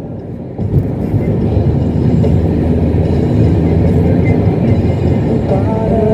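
Steady low rumble of road and wind noise inside a moving car's cabin, in a gap in the music. Music comes back in near the end.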